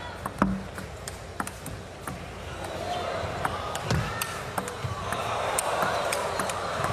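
Table tennis rally: a string of sharp, irregularly spaced clicks as the ball strikes the bats and the table. Crowd noise builds louder from about halfway through.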